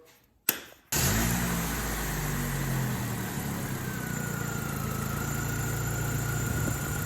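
A Chevrolet Malibu engine starts about a second in after a sharp click, flares briefly, then settles into a steady idle. With its coil pack replaced, it runs without the misfire that had been shaking it.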